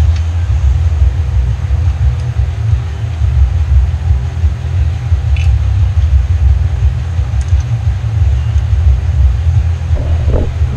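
Steady, loud low rumble with a faint hum above it, and a few light knocks in the last second.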